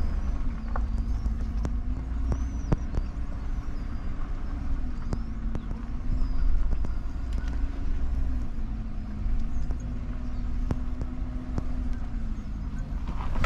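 Car moving slowly, heard from inside the cab: a steady low engine and road rumble with an engine hum that rises and falls a little in pitch, and scattered light clicks and ticks.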